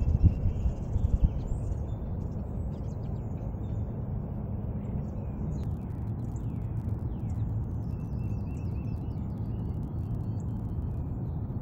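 Wind rumbling on the microphone with small birds chirping thinly in the background. A few low thumps come in the first second or so.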